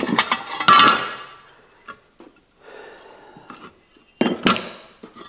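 Metal hand tools and a circular saw's steel base plate clinking and clattering on a workbench as they are handled and set down: a run of clinks in the first second and another loud cluster about four seconds in.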